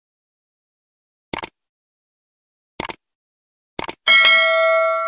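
Like-and-subscribe animation sound effects: three mouse clicks, each a quick double click, then a bright bell ding about four seconds in that rings on as it fades.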